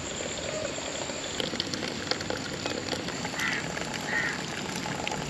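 Starchy water from par-boiled rice pouring out of a large aluminium pot and splashing into a terracotta basin as the rice is drained.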